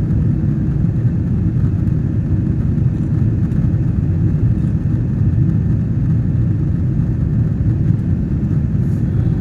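Steady low rumble of a jet airliner's engines and airflow heard from inside the passenger cabin, even in level throughout.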